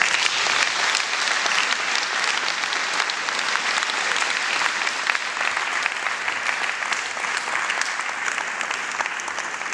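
Audience applauding. The clapping breaks out suddenly and keeps up steadily, thinning a little toward the end.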